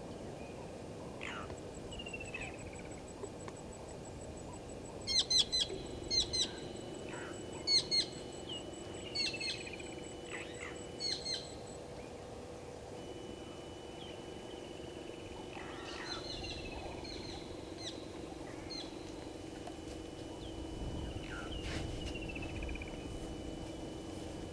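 Wild birds calling: several loud bursts of short, sharp repeated notes between about five and twelve seconds in, then quieter calls later on, over a steady background hiss. A faint, fast high ticking runs through the first half.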